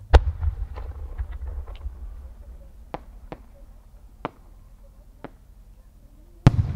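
A No. 8 (about 24 cm) senrin firework shell fired from its mortar: a loud boom with a low rumble just after the start, a few fainter sharp cracks over the next several seconds, then a second loud bang with rumble near the end as the shell bursts high overhead.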